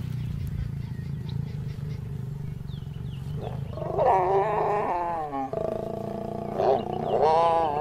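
African lions snarling and growling while mating: a low steady rumble, then from about four seconds in several loud wavering snarls as the lioness bares her teeth at the mounted male.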